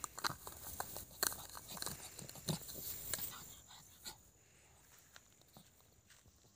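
A pug chewing and crunching on a small object in dry grass: a quick string of sharp crunches and bites through the first four seconds, then only a few faint ones.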